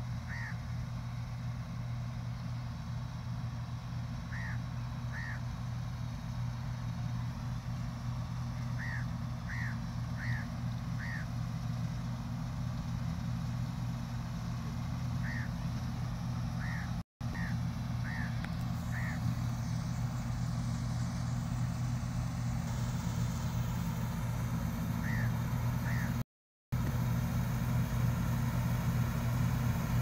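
Combine harvester's engine running steadily as it cuts wheat, a little louder near the end as the machine comes closer. Crows caw in short runs of two to four calls throughout. The sound cuts out completely twice, very briefly.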